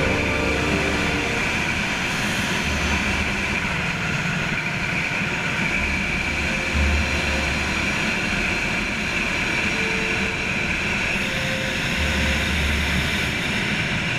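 Steady rush of wind over the body-mounted camera's microphone as a wingsuit flies at speed, with no break for the whole stretch.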